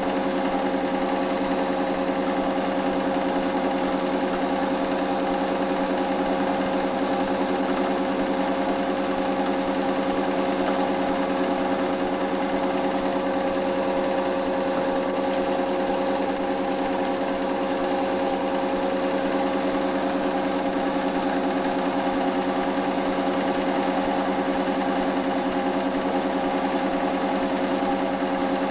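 8mm cine projector running: a steady mechanical whirr with a fast, even clatter of the film mechanism.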